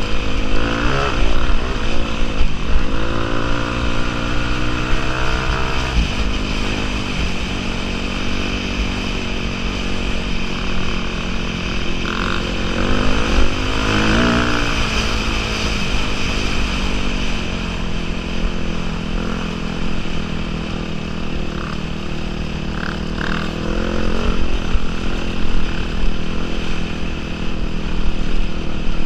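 A 450-class dirt bike's single-cylinder engine running while riding, its pitch rising and falling as the throttle is opened and closed, with several strong rev-ups. Wind buffets the helmet-mounted microphone throughout.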